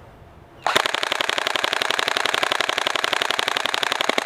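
Airsoft rifle firing full-auto in one long, loud burst of rapid, evenly spaced shots, starting a little under a second in.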